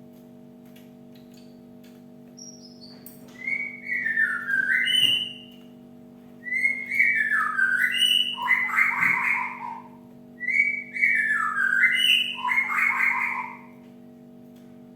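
Cinereous tit (gelatik batu) singing three phrases of stepped, falling whistled notes, each ending in a buzzy rattle. A steady low hum lies underneath.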